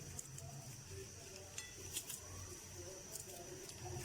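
A few light clinks of utensils against dishware, scattered through a low background murmur.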